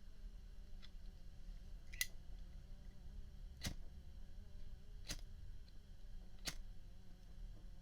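A Zippo Slim windproof lighter being handled: four sharp metallic clicks about a second and a half apart, with a fainter one before them, over a low steady hum.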